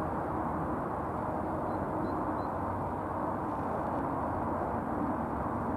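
Airbus A320-214 airliner climbing out after takeoff, its CFM56 turbofan engines at climb power: a steady, even rush of jet noise.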